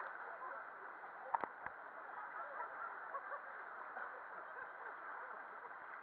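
River water rushing steadily, with indistinct chatter of voices over it and two sharp knocks about a second and a half in.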